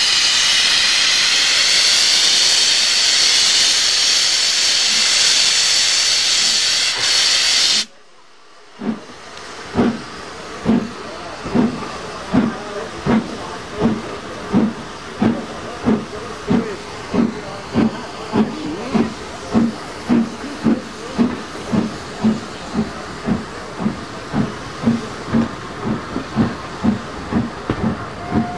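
Steam locomotive, LMS Horwich 'Crab' 2-6-0 No. 42765, pulling out: a loud steady hiss of steam cuts off sharply about eight seconds in. About a second later its exhaust beats start and slowly quicken as the train gets under way.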